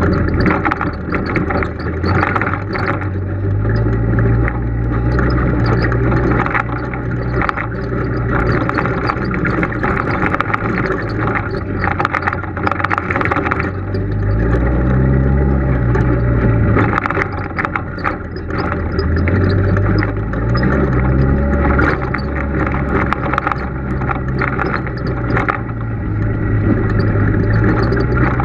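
Polaris RZR side-by-side's engine running as it drives over a rough dirt trail, its pitch climbing and falling back twice, about halfway through and again a few seconds later. Frequent short knocks and rattles run throughout.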